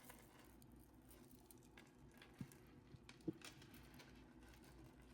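Near silence: quiet room tone with a few faint, short clicks from handling, the clearest about two and a half and three and a quarter seconds in.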